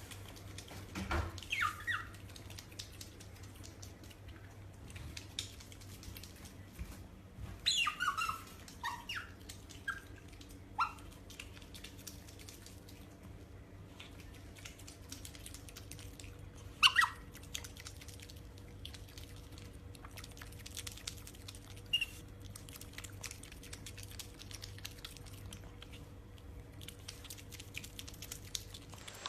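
A small animal giving short, high squeaks and chirps that fall in pitch, a few at a time with long gaps between, over a faint steady hum.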